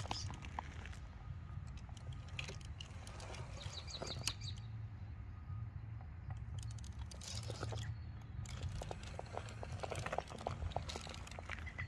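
Traxxas TRX-4 Sport RC rock crawler's electric motor and drivetrain running with a low steady hum as it crawls over broken concrete slabs, with scattered clicks and scrapes of its tyres and chassis on the stone. A bird chirps briefly about four seconds in.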